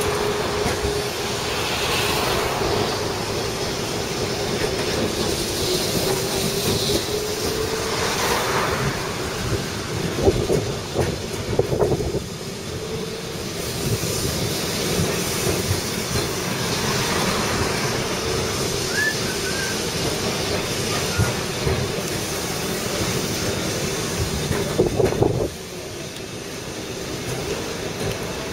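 Lisbon tram running downhill, heard from inside the car: the wheels rumble and clack on the rails, with a wavering whine over the first several seconds. Sharp knocks come about ten seconds in and again near the end, after which the running noise is quieter.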